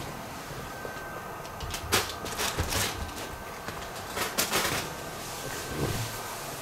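Fabric of a pop-up cat tunnel rustling in short bursts as a cat scrambles inside it: a few about two seconds in, a cluster around four and a half seconds and one more near the end.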